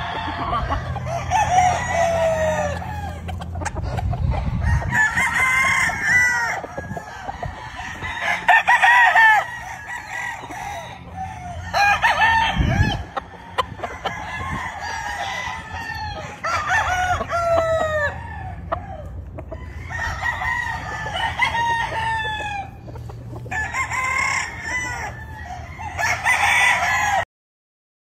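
Gamefowl roosters crowing again and again, about nine crows one after another, roughly one every three seconds.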